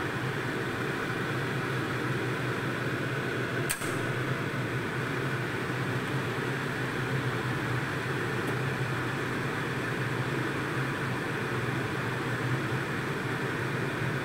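Steady hum and hiss of a pot of fish soup boiling on the stove, with one short click about four seconds in.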